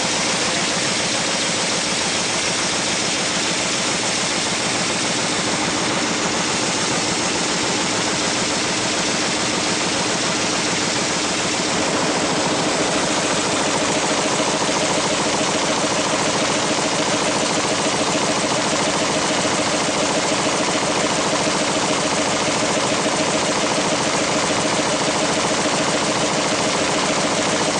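Winkler+Dunnebier 527 GSV.38 envelope folding machine running at speed: a loud, steady, fast mechanical clatter. About twelve seconds in it gets slightly louder and a fast regular chatter comes forward.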